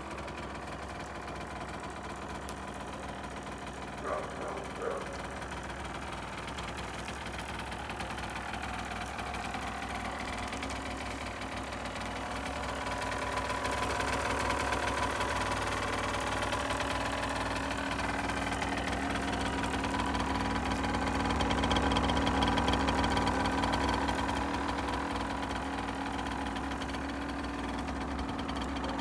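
Aprilia SX 50's 50 cc two-stroke single-cylinder engine idling steadily. It grows louder about halfway through and eases a little near the end.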